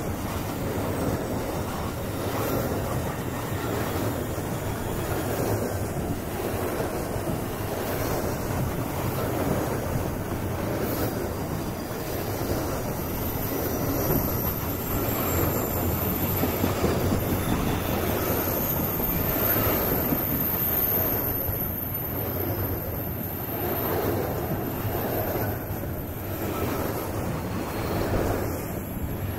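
Freight train of covered hopper wagons rolling past at close range: a steady rumble of steel wheels on rail. A thin high wheel squeal sounds over it from a little before halfway to about three quarters through.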